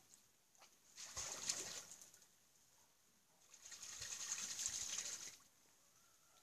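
Black swan bathing in a patch of open water on an iced-over pond, splashing in two bursts: a short one about a second in and a longer one in the second half.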